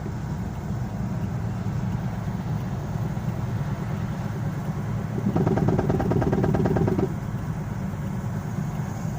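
Car's cabin road and engine rumble, with a fast, evenly spaced knocking at roughly a dozen knocks a second, from about five seconds in to about seven seconds. The knock comes from a road wheel whose lug nuts or bolts are loose and not tightened.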